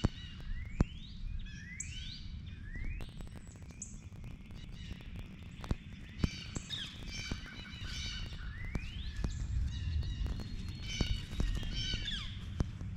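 Songbirds calling: repeated rising whistled sweeps and bursts of chirping. Under them, footsteps crunch through dry grass and leaves, over a low rumble on the microphone.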